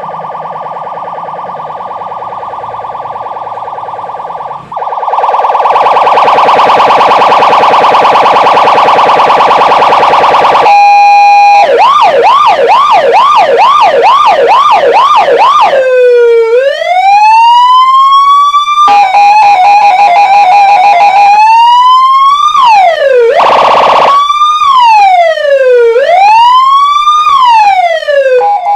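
A 12-tone electronic siren played through a horn loudspeaker, stepping through its tones. First comes a steady buzzing horn tone that gets much louder about five seconds in. Then a fast yelp about twice a second, a slow rising wail, a warbling tone, and more slow rising-and-falling wails.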